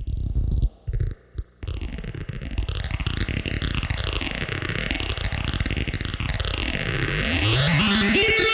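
Handmade 4093-chip quad-oscillator drone box played through a Boss phase shifter and spring reverb: a dense buzzing electronic drone with a slow, repeating phaser sweep. It cuts out twice near the start, and near the end one tone glides up in pitch as a knob is turned.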